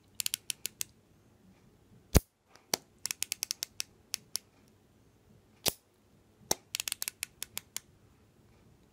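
NovoPen Echo insulin pen's dose selector being turned, clicking in quick runs of several clicks, with a few single louder clicks between them, as a dose is dialled up to prime the pen.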